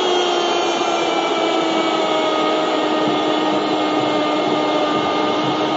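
A football commentator's long goal cry, one "gol" held on a single steady pitch, over the steady roar of a stadium crowd, marking a penalty just scored.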